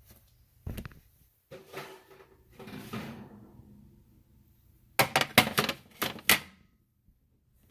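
Oven and baking pan being handled with oven mitts: a single knock, a couple of seconds of scraping, then a quick run of about six sharp clacks as the pan is taken out of the oven and set down.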